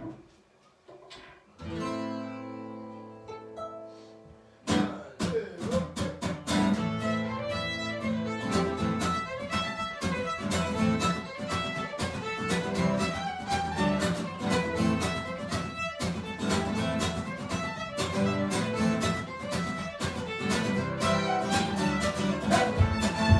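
A small band on acoustic instruments plays the instrumental opening of a song. A held chord sounds about a second and a half in, then from about five seconds a steady strummed rhythm with a melody over it.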